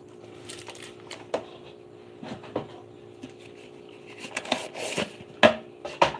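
Irregular clicks and knocks of things being handled, more frequent and louder in the second half, over a steady low hum.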